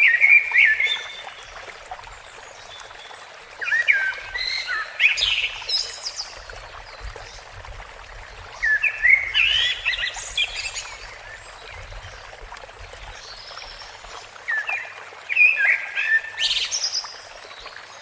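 A songbird sings rapid, warbling whistled phrases in four bouts, roughly every four to five seconds. Under the song runs a steady hiss of running water.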